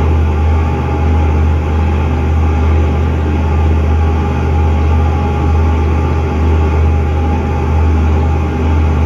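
Boat engine running steadily at cruising speed, a constant low drone, with the hiss of the wake.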